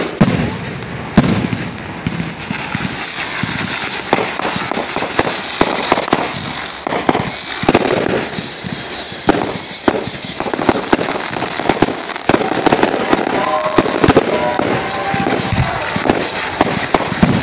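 Aerial fireworks display: a dense, continuous barrage of sharp bangs and crackle, with a run of high whistles falling in pitch about eight to twelve seconds in.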